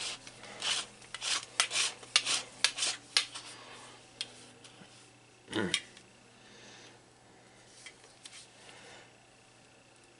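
Metal rubbing, scraping and clicking as a lever-action grease gun's barrel and head are handled and fitted together while it is being loaded with a grease cartridge. The scrapes and clicks come thick and fast for the first few seconds, with one louder one about halfway, then it goes mostly quiet.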